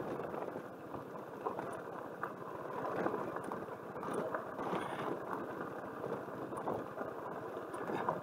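Suzuki Burgman scooter riding over a loose gravel road: a steady low running sound of engine and tyres on the gravel, with scattered small ticks. It cuts off abruptly at the end.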